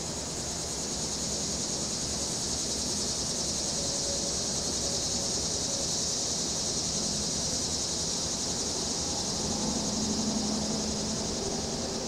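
Cicadas buzzing in a steady high drone that swells a little and eases again, over a low, steady rumble of distant traffic and wind. A low hum rises briefly about ten seconds in.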